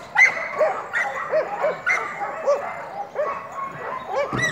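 Two Belgian Malinois barking repeatedly, about two to three barks a second, with a lower and a higher-pitched bark overlapping: guard barking at a helper in protection work.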